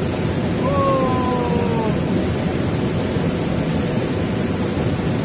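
Steady rush of a fast-flowing mountain river. A faint, slightly falling tone sounds briefly about a second in.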